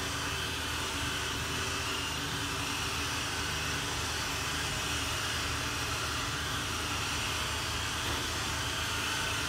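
Steady machine drone: a low hum under a broad hiss, unchanging throughout.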